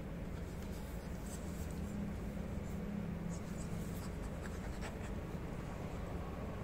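Steady, scratchy rubbing of a hand stroking and massaging a puppy's fur, with a few faint clicks.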